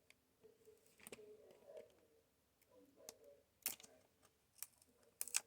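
Cardboard collection-box packaging being handled and opened by hand: light rustling with a few sharp clicks, about a second in and several in the last two seconds.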